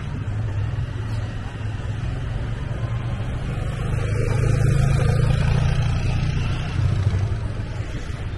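Low, steady vehicle rumble mixed with wind buffeting the microphone while travelling along a city street, swelling louder about four seconds in and easing off again near seven seconds.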